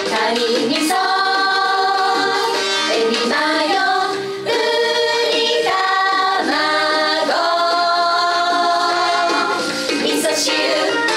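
Several women singing a bright, upbeat sushi-themed J-pop song together, with music, the lyrics running through a list of sushi names: kanpachi, zuwai, kinme, taraba, ebi-mayo, uni, tamago, miso-shiru.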